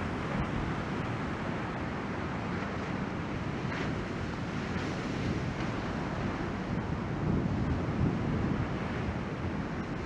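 Ocean waves breaking along the shore, a steady wash of surf with wind buffeting the microphone.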